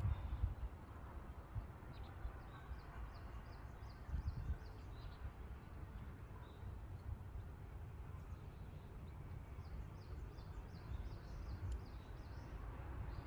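Outdoor wind rumble on the microphone, with a small bird chirping a quick run of high notes twice, for a few seconds each time.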